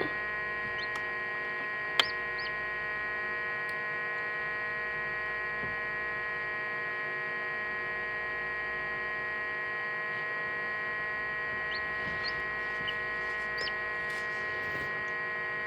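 Steady electrical hum from the egg incubator, with one sharp click about two seconds in. A few faint, short, high peeps come from the newly hatched chicks.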